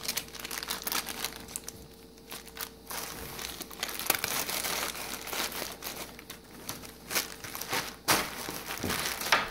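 Small clear plastic bags crinkling and rustling in irregular bursts as they are handled and pushed into a fabric pouch.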